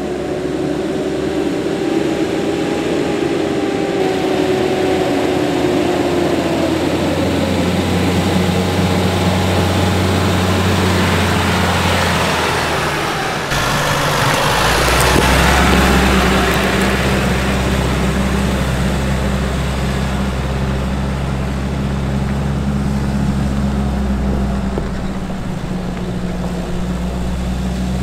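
Nissan Navara 4WD ute driving on a rocky dirt track with a steady engine drone. Around 15 seconds a louder rush of noise swells as it passes close by and climbs away.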